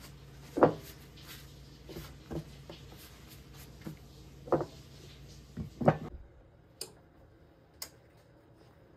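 A few soft knocks and thuds, spaced irregularly over the first six seconds, from things being handled and set down. The background hum then drops out, and two sharp clicks follow about a second apart.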